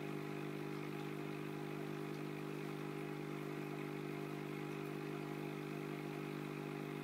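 Aquarium pump running with a steady low electrical hum.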